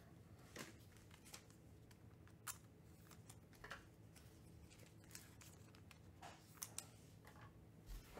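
Near silence with a few faint, scattered clicks and light rustles from trading-card packs and cards being handled.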